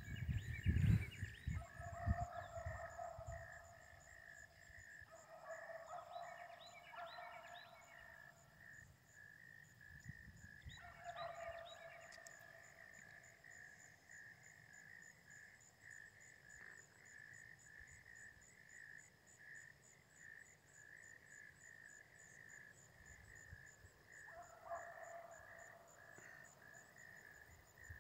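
Beagle pack giving tongue, faint, while running a rabbit on its scent trail: drawn-out bays come in four bouts of a second or two each, the last near the end.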